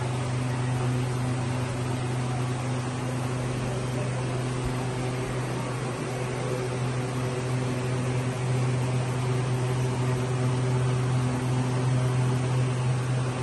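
Steady low mechanical hum with a constant hiss, unchanging throughout.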